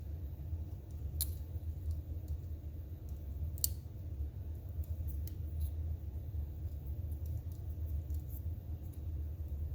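Scattered small clicks and light metallic taps from hands working lamp-switch parts and wires, two of them sharper, over a steady low rumble.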